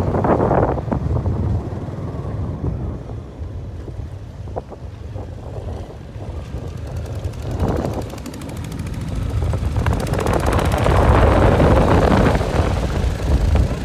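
A vehicle engine running, with wind buffeting the microphone. A two-wheel walking tractor's single-cylinder diesel engine chugs louder as it comes alongside, loudest about ten to thirteen seconds in.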